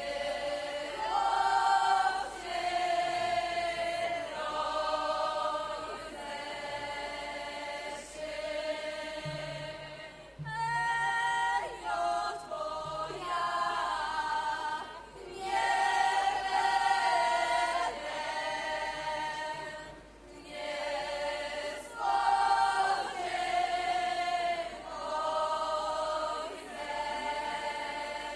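A group of Podhale highlander (Górale) folk singers, men and women, sing together in short phrases, each ending on a held note.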